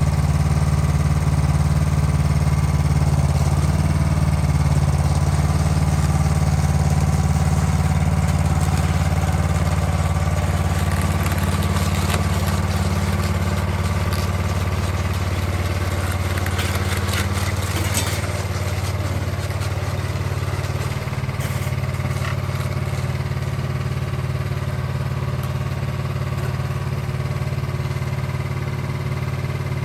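Honda track-drive snowblower's engine running steadily while the machine climbs aluminum loading ramps into a pickup bed. About halfway through comes a series of clanks and rattles as the tracks ride up the metal ramps and onto the bed.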